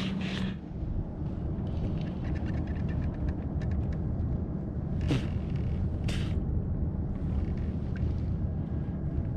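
Steady low rumble of wind buffeting the microphone, with a run of faint quick ticks in the first few seconds and two short sharp sounds about a second apart midway.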